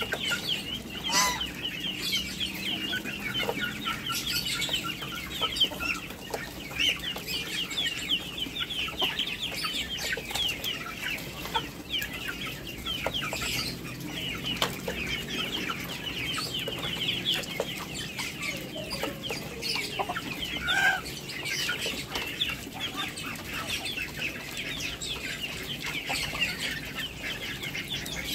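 Mixed flock of domestic geese, muscovy ducks and chickens feeding on chopped lettuce: steady busy pecking and clucking, with a louder call about a second in and another about two-thirds of the way through.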